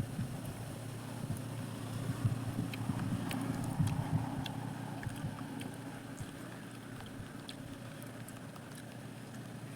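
Wind buffeting the microphone as a low, uneven rumble, stronger in the first few seconds and easing later, with scattered faint clicks.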